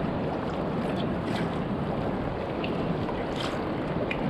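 Steady wash of surf breaking on the beach, with wind on the microphone and a few faint clicks.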